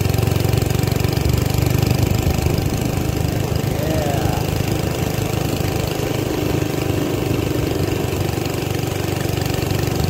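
An old minibike's small engine running steadily while the bike is ridden at a modest, even speed.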